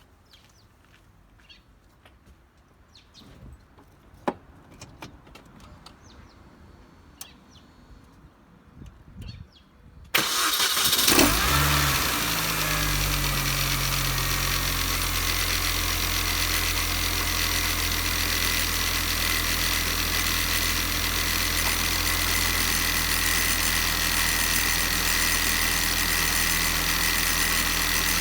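Faint clicks and knocks, then a MINI Cooper S R53's supercharged 1.6-litre four-cylinder cranks and starts about ten seconds in, flares briefly and settles into a steady idle with a steady high whine over it. The car has an abnormal engine noise awaiting repair.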